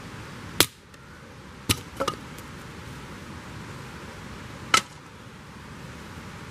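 Firewood being chopped: a few sharp, separate strikes, with a quick double knock about two seconds in, over a steady background hiss.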